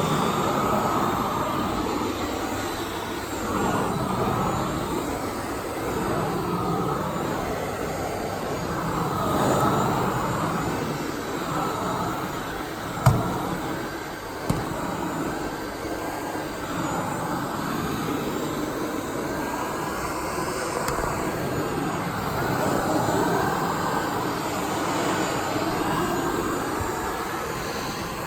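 Dyson Ball Animal 2 upright vacuum cleaner running steadily, its whine wavering up and down in pitch, with two sharp knocks about halfway through, a second and a half apart.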